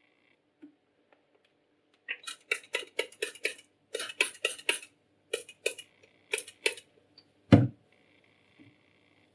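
Straight razor stroked across a sharpening stone: about fourteen short scraping strokes, roughly three a second, in three quick runs with brief pauses. Near the end a single low thump, the loudest sound.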